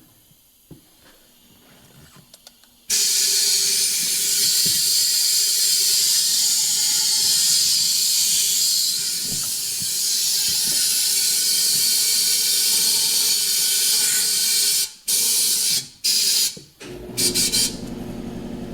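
Compressed air hissing loudly and steadily for about twelve seconds while the mower tire's bead is being seated, then cutting off and giving several short bursts. A low steady hum comes in near the end.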